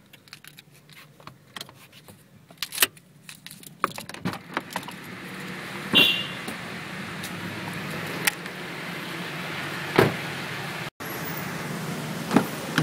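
Car keys jangling and clicking in the ignition lock of a 2008 Toyota Yaris as it is switched off. Then the car's doors are worked: a knock about six seconds in, a heavier thud of a door shutting about ten seconds in, and a click of the rear door handle near the end, over steady background noise that comes up once the door is open.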